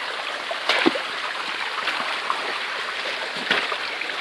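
Small forest stream running over rocks: a steady rush of water, with a few short knocks and rustles about a second in and again near the end.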